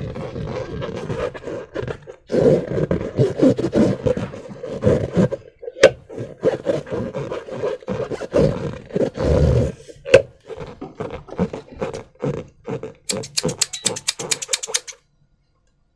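Slime-filled rubber balloons being squeezed and rubbed by hand, giving irregular rubbery squeaks and squelches at one low pitch. Near the end comes a quick run of about a dozen sharp clicks.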